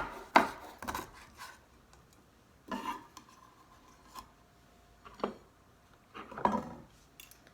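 Kitchen knife cutting asparagus on a cutting board: three sharp chops in the first second, then scattered lighter knocks and scrapes from handling the knife and cut pieces.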